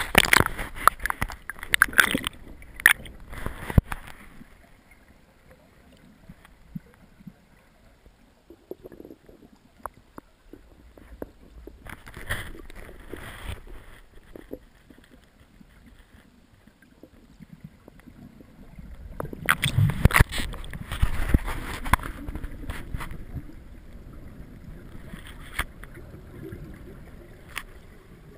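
Water splashing and gurgling around a camera held at the surface, in the first few seconds. Then muffled noise heard underwater, with a few brief bursts of gurgling and a louder stretch of rushing, bubbling water about two-thirds of the way through.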